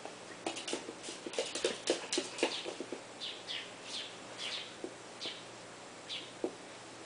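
Toy poodle's nails clicking and scrabbling on a hardwood floor as she spins chasing her tail: a quick run of sharp clicks in the first couple of seconds, then scattered short scuffs.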